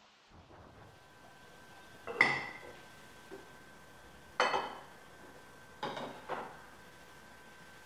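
Ceramic bowls and plates clinking as they are handled and set down on a wooden table: four separate clinks with a short ring, about two seconds in, near the middle, and twice close together soon after.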